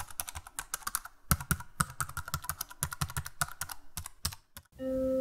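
Typewriter sound effect: rapid mechanical key strikes clacking, several a second, stopping about four and a half seconds in. Just before the end a station loudspeaker's chime starts with a steady tone.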